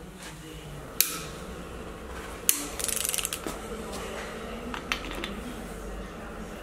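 Ratchet of a torque wrench with an angle gauge, used to angle-tighten engine bolts: two sharp metallic clicks, then a quick run of ratchet clicks lasting about half a second, and a couple of fainter clicks near the end.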